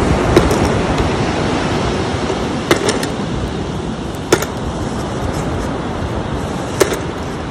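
Steady rush of surf and wind on the microphone, with about five sharp clicks of seashells being dropped into a plastic tub.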